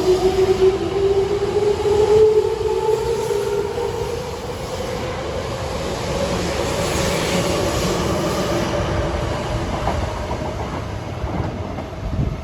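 Toyo Rapid Railway 2000 series electric train pulling out of the station. The motor whine rises in pitch over the first couple of seconds, then gives way to a steady rumble of the wheels and cars, which eases off a little toward the end.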